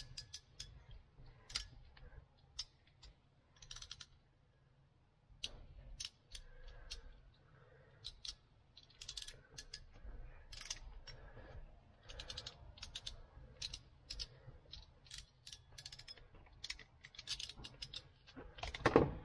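Irregular clicks and snaps of a hand crimping tool and wire strippers at work, crimping connector sleeves onto wire ends, with one louder snap near the end.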